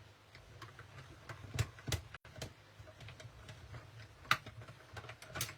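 Scattered light clicks and taps as die-cutting supplies are handled on a craft table, with a few sharper clicks near the end.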